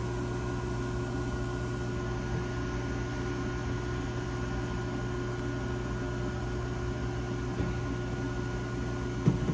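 Steady machine hum with a few constant tones, like a fan or air-conditioning unit running, with one short knock near the end.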